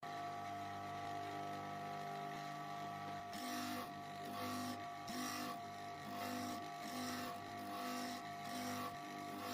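Electric sharpening machine's motor switched on and running with a steady hum. From about three seconds in, a regular rhythmic rasping joins it, repeating about every three-quarters of a second.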